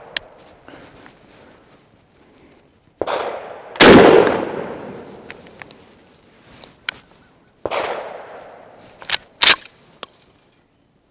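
Mossberg 835 Ulti-Mag 12-gauge pump shotgun fired once with a 3½-inch magnum turkey load about four seconds in: a very loud blast with a long echoing tail. Quieter gunshots with echoing tails come just before it and near eight seconds in, and two sharp clacks follow near nine seconds.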